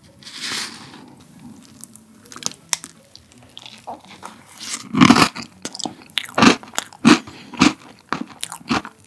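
Close-miked eating of a spoonful of chestnut tiramisu: a wooden spoon scooping into the soft cream, then chewing with loud, sharp crunches from the granola topping, coming about once every half second to a second from about halfway through.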